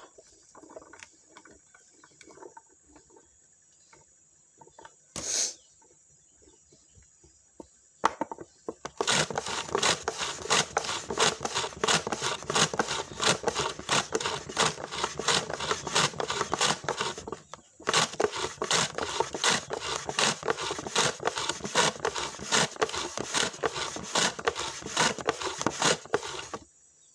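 Shallots being sliced on a wooden hand slicer: fast, even scraping strokes of wood over the blade, about four a second, with a short break near the middle. A single sharp knock comes before the slicing starts.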